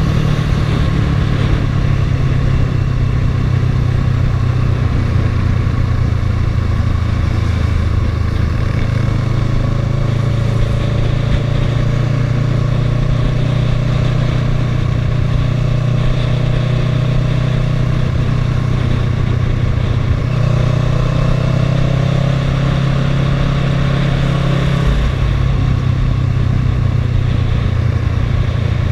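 Kawasaki ER-6n's 649 cc parallel-twin engine running under steady throttle while riding on the road, its note rising gently twice as the bike picks up speed, over constant wind and tyre noise.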